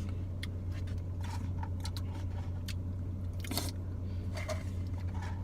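People eating close to the microphone: chewing with scattered small clicks and rustles, over a steady low hum.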